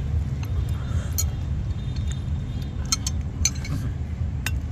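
Chopsticks clinking against a ceramic bowl four times while eating, over a steady low rumble.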